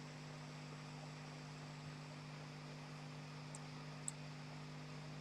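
Faint steady electrical hum and hiss of the recording, with a brief faint click about four seconds in.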